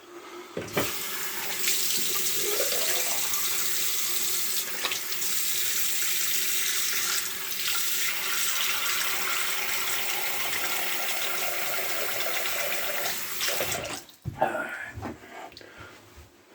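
Sink tap running steadily while the face is rinsed off with water. The water stops about fourteen seconds in, followed by a few small splashes and knocks.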